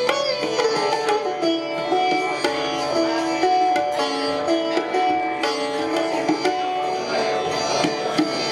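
Sitar and tabla playing together: the sitar plucks a melodic line of held notes that step up and down in pitch, while the tabla pair, struck by hand, keeps up a run of quick strokes beneath it.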